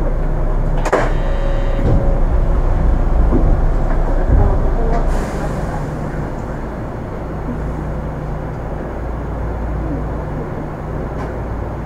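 Onboard running sound of an Astram Line 6000 series rubber-tyred people-mover car, heard inside the car: steady running rumble with a low motor hum from its armature-chopper drive. About five seconds in there is a short hiss of air, and the sound then becomes quieter.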